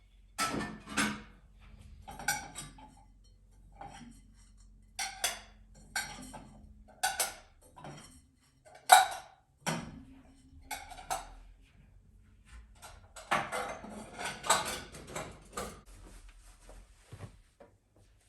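Kitchen dishes and utensils being handled: a series of clinks and knocks, with the sharpest knock about halfway through and a busier stretch of clatter near the end. A faint low hum sits under parts of it.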